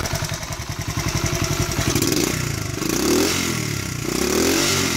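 1982 Honda CT70's small single-cylinder four-stroke engine idling, then revved up and let back down twice from about two seconds in.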